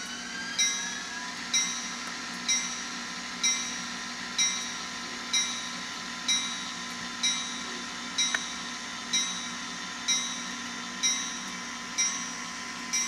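N scale diesel locomotive's DCC sound decoder, playing through its tiny speaker: a locomotive bell rings about once a second over a steady diesel engine hum, with a rising whine in the first second.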